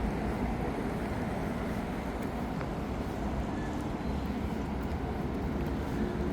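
Steady city street traffic: cars driving past with a continuous rumble of engines and tyres.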